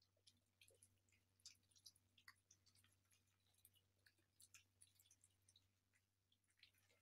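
Faint, irregular wet clicks and smacks of several kittens chewing and lapping food from plastic bowls, over a faint steady low hum.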